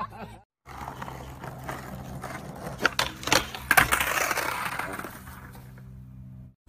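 Skateboard on asphalt: a rolling rush, then several sharp knocks about three seconds in as the board hits the rail and the pavement and the skater falls.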